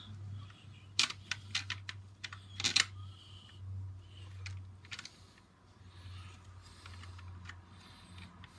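Light scattered clicks and taps of the CPU cooler's backplate and long screws being handled and pushed through the motherboard's mounting holes, over a steady low hum.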